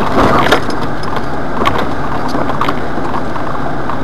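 Jeep Wrangler driving over a wet, rocky trail, heard from inside the cab: a steady engine and drivetrain noise with a few short knocks and rattles as the tyres climb over loose rock.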